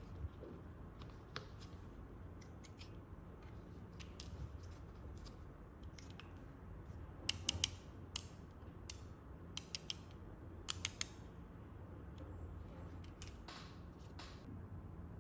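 Sharp clicks and snaps of small revolver parts being handled and fitted, clustered from about seven to eleven seconds in, with a softer scrape near the end, over a steady low hum.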